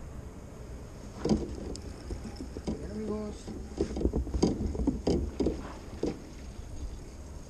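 Irregular knocks and clatter of fishing gear against a kayak while the angler works his rod and reel, over water and wind noise on the microphone. A short voice-like sound comes about three seconds in.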